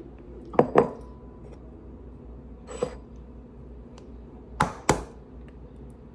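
Brown eggs tapping on a ceramic bowl and countertop: a few sharp, separate knocks, the last close pair cracking an egg's shell on the bowl's rim.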